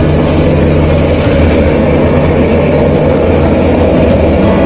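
Diesel locomotive of an approaching train, its engine a steady low drone.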